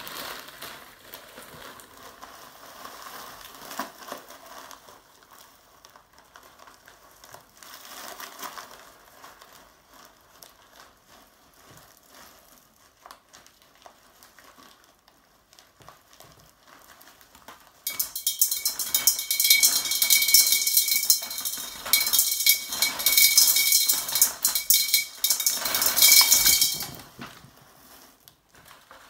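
Drainage stones poured through a funnel into a large glass terrarium bottle, clicking and clinking against the glass. For most of the time there is only bag rustling and a light trickle; about two-thirds of the way in, a loud, dense rattle of stones pours in for several seconds, with a clear ringing tone running through it.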